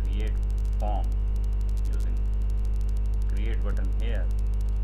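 Steady electrical mains hum on the recording, a low buzz with a stack of overtones, with a few faint murmured words about a second in and again near the end.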